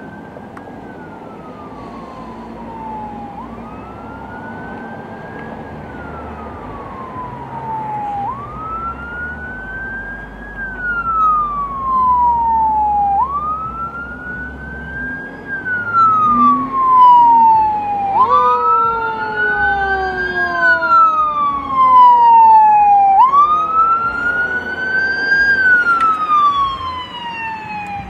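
Fire engine siren wailing, rising quickly and falling more slowly about every five seconds, and growing louder as the truck comes closer. About eighteen seconds in, a second, lower siren tone joins and glides slowly down.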